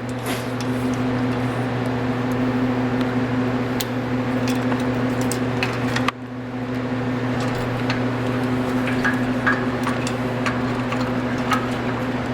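Steady low hum of running lab machinery such as fans or ventilation, with scattered light clicks and taps. The sound drops out briefly about six seconds in.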